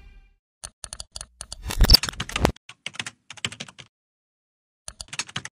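Computer-keyboard typing sound effect: irregular runs of quick key clicks, densest and loudest about two seconds in, with a last short run near the end.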